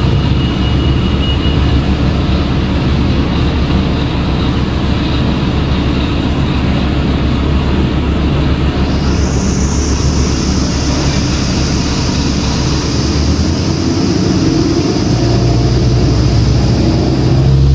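Cummins ISL diesel engine of a 2006 New Flyer D40LF transit bus running as the bus travels, a steady low rumble with road noise. The engine note rises near the end.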